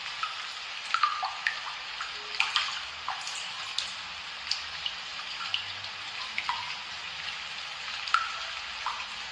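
Water dripping: many drops landing in irregular plinks, a few a second, some with a brief glide in pitch, over a steady hiss.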